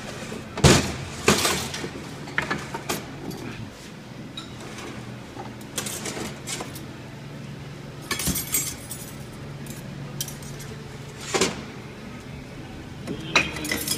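Steel clutch plates and other metal parts of a GM Turbo 400 automatic transmission clinking and clattering as they are pulled out and handled during teardown. The clinks come irregularly, loudest about a second in and again near the end, over a faint steady low hum.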